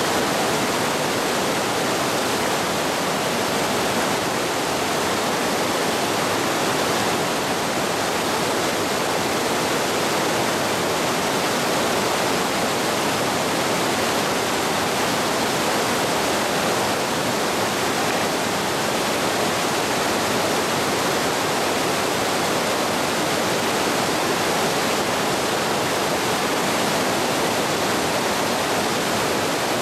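Waterfall rushing with a steady, even roar of falling water.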